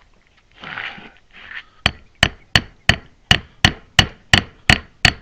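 Hammer striking a metal part of a Case 580 backhoe's outrigger ram: about ten sharp, ringing blows at roughly three a second, starting about two seconds in.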